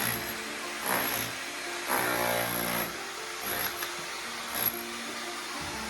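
Power tool running in short bursts, with the longest burst, about a second long, starting about two seconds in.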